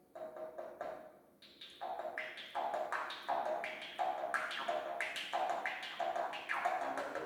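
Komus (jaw harp) being played in an improvisation: a rhythmic run of plucked twangs, about three a second, each with a shifting, vowel-like overtone, growing louder after a quiet start.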